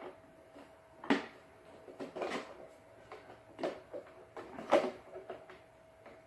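Hard plastic toy parts being handled and fitted together, giving a handful of sharp clicks and knocks about a second apart, the loudest a little before the end.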